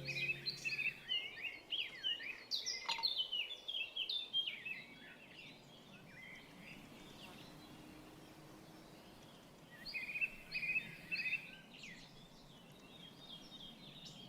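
Small songbirds chirping and singing in quick high notes, a busy bout for the first few seconds, a lull of faint background hiss, then a second shorter bout about ten seconds in.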